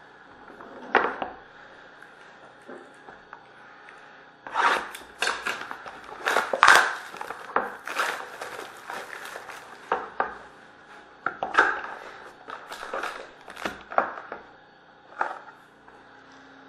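A sealed trading-card box being opened by hand: irregular crinkling, scraping and sharp knocks of cardboard and a foil card pack. The handling is busiest from about four to nine seconds in, then thins to scattered clicks.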